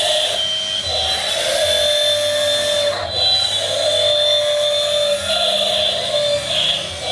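Electric motors of a 1/16-scale RC excavator whining steadily, the pitch and strength of the whine shifting every second or so as the machine's functions start and stop under load.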